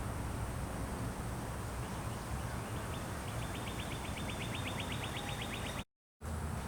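Outdoor ambience with a steady low rumble. About three seconds in, a bird trills rapidly, about ten high notes a second, for a little over two seconds. The sound cuts out briefly near the end.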